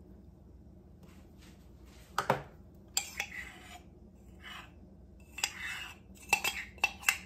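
A ceramic mug clinking and scraping as melted peanut butter is poured from it: several sharp clinks and short scrapes, starting about a second in.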